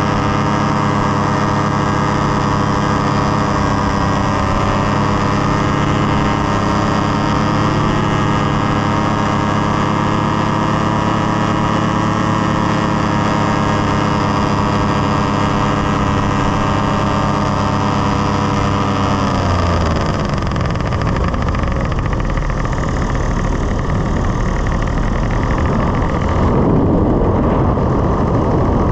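Powered paraglider trike's engine and propeller running steadily at high throttle, then throttled back about two-thirds of the way through, the pitch sliding down into a rougher, noisier rush.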